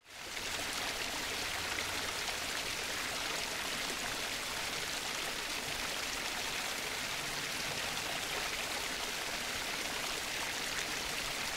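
Steady rushing and babbling of a flowing stream, fading in quickly at the start and then holding even.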